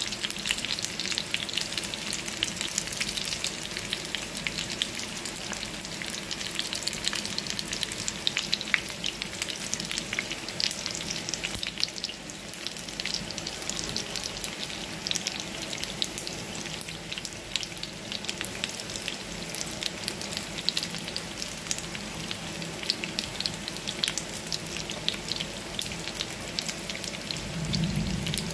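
Breaded chicken nuggets shallow-frying in hot oil in a frying pan: a steady, dense crackle and sizzle.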